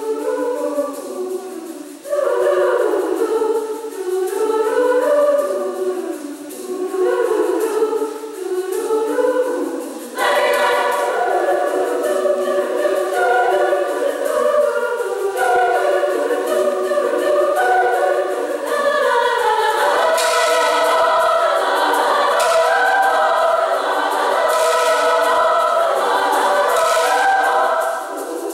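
Women's choir singing in several parts; the singing becomes fuller and louder about ten seconds in.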